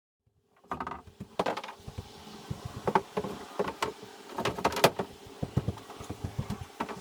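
Irregular wooden knocks, taps and clatters of building work, some sharp and loud, over a faint steady hum; they start suddenly about half a second in.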